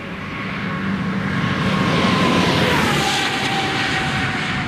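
A car passing at high speed on a race track: the engine note builds as it approaches, is loudest about two to three seconds in, and drops in pitch as it goes by.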